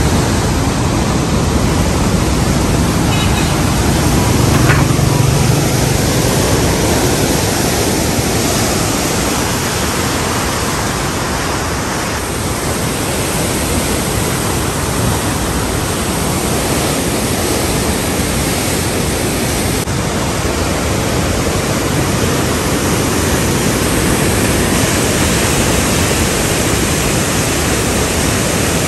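Floodwater of the Chenab river rushing through the open gates of the Head Marala barrage, a loud, steady rushing of churning water around the bridge piers.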